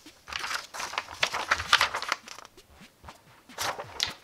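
A sheet of paper rustling and crinkling as it is handled, for about two seconds, then a shorter rustle near the end.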